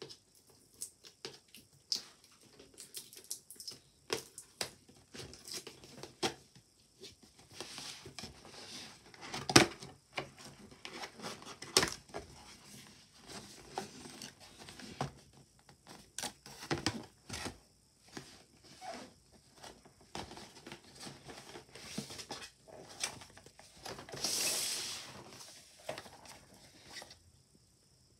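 Cardboard blind-box packaging being handled and opened by hand: irregular tearing, crinkling and scraping with scattered taps and clicks. A sharp knock comes about ten seconds in, and a longer rustling scrape near the end as a box is pulled out.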